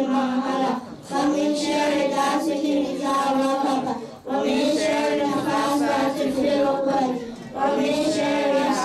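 Girls singing an Islamic devotional chant together, unaccompanied, into microphones. The phrases are long and held, with short breaths about one, four and seven and a half seconds in.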